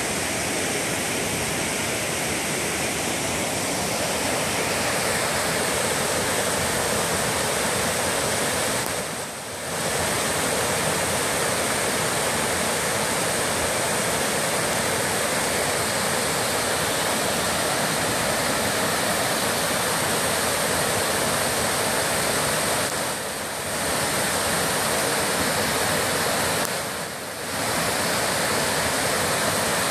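Skillet Creek Falls pouring over stepped rock ledges: a steady, loud rush of water that dips briefly three times.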